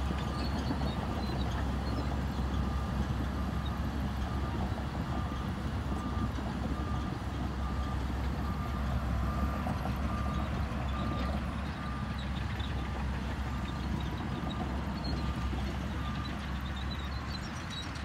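Shantui crawler bulldozer's diesel engine running with a steady low rumble as it reverses. Its reversing alarm beeps a little more than once a second, stopping about sixteen seconds in.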